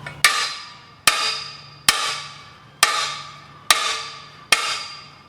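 Steel basketball hoop rim struck by hammer blows at a steady pace of a little more than one a second, each strike leaving the rim ringing as it fades. The blows are banging out a flat spot to bring the rim back to round.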